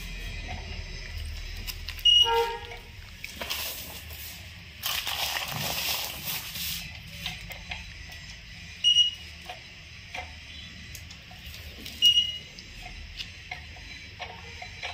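Handheld thermal inkjet batch-coding printer beeping three times, with sharp single electronic beeps a few seconds apart as it prints. In the middle, a rasping scrape runs for a couple of seconds as its roller wheel is pushed along the woven plastic sack.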